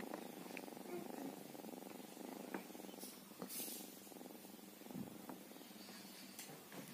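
Sleeping tabby cat purring steadily, very close to the microphone, with a few light ticks and a soft bump about five seconds in.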